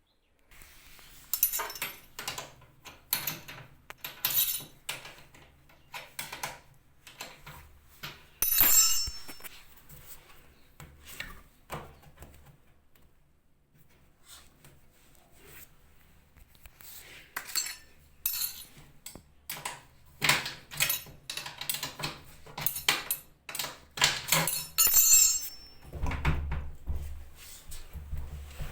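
Metal tool clinking and knocking against a front-load washing machine's adjustable levelling feet as they are turned to balance the machine. The clinks come in irregular clusters, with a quiet spell in the middle and a few low thuds near the end.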